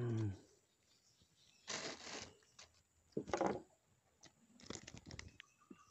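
A man's voice trailing off in a low, falling groan, then a few short rustling scrapes and small clicks from hands handling a freshly caught small fish on the hook and line.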